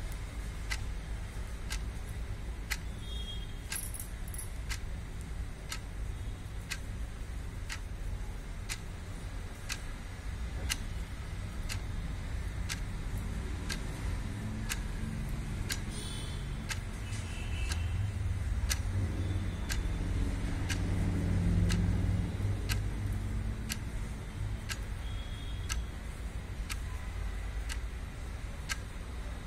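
A clock ticking steadily about once a second over a low background hum. Around the middle a low rumble swells and fades, like a passing vehicle.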